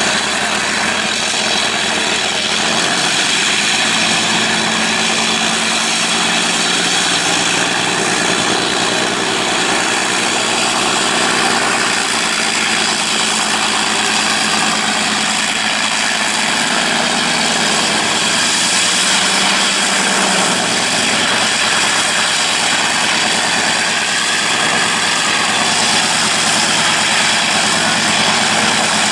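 Fairey Firefly's Rolls-Royce Griffon piston engine running steadily at low power as the aircraft taxis, its propeller turning.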